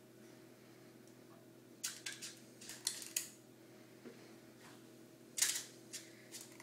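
Short clicks and clinks of an ice cream scoop scooping batter and releasing it into a muffin pan: small clusters about two, three and five and a half seconds in, over a faint steady hum.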